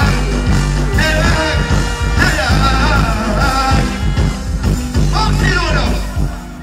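Loud live dancehall music through a stage sound system: a heavy bass line, with a male vocal sung over it.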